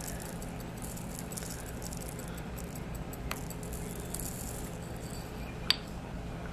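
Pixie crystals (tiny nail rhinestones) poured from a small plastic jar, pattering as a light run of tiny clicks onto a nail and into a plastic bowl. A sharper click comes about three seconds in, and the loudest, a single tap, near the end, as the jar is set down.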